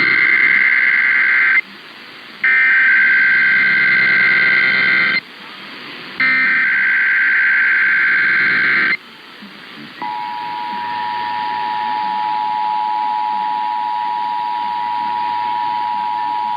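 Emergency Alert System data bursts broadcast over AM radio. The tail of one SAME header burst is followed by two more, each a harsh warbling screech about three seconds long with short gaps between. About a second after the last burst, the EAS attention signal begins: a steady two-tone alarm (853 and 960 Hz together) that holds to the end.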